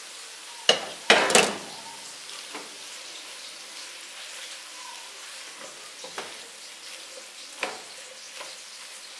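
Pan of boiled macaroni and vegetables sizzling softly on the stove while it is stirred and tossed with a spatula. A loud clatter of the spatula against the pan comes about a second in, then a few lighter knocks as the stirring goes on.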